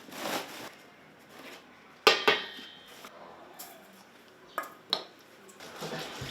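Kitchen clatter of dishes and utensils: two sharp metallic clinks that ring briefly about two seconds in, then two shorter knocks near the five-second mark.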